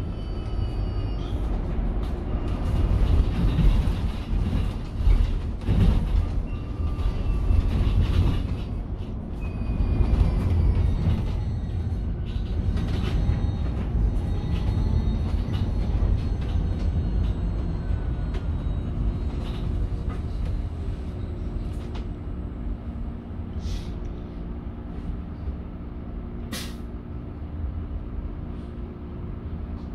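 Cabin sound of a Mercedes-Benz eCitaro battery-electric bus on the move: low road rumble and frequent rattles, with faint electric-drive whines gliding up and down in pitch as speed changes. In the second half it grows quieter and steadier with a low hum, and two sharp knocks sound near the end.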